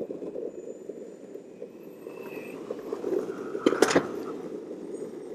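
Skateboard wheels rolling over rough, bumpy pavement, a continuous gritty rattle, with a sharp clack nearly four seconds in.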